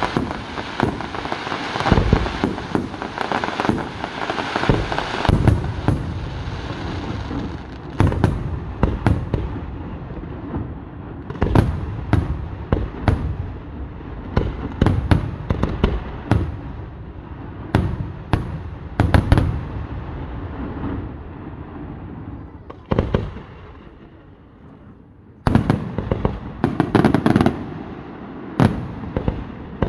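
Vaccalluzzo aerial firework shells bursting: a dense barrage of overlapping bangs, then a run of separate sharp reports. A short lull comes about three quarters of the way through, and a fresh rapid barrage starts near the end.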